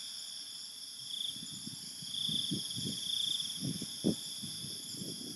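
Night chorus of crickets and other insects: several steady high trills, one of them pulsing, with soft low thumps and rustling in the middle.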